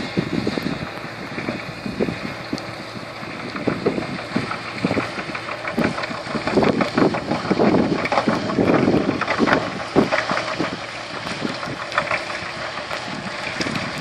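Claas Arion 530 tractor running as it pulls a Pichon M1350 manure spreader across the field, with gusty wind buffeting the microphone, heaviest in the middle.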